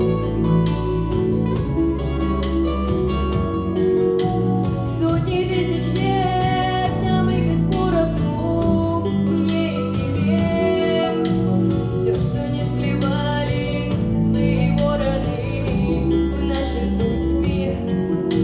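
A song with acoustic-guitar accompaniment; young girls' voices come in singing about four seconds in.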